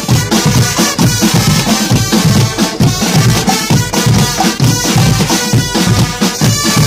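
Guggenmusik band playing loudly: a massed brass section of trumpets and other horns over large bass drums and a drum kit, with a steady beat.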